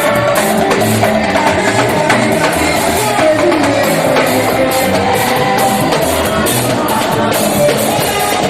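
Church choir praise music: singing over a band with drums, keeping a steady beat.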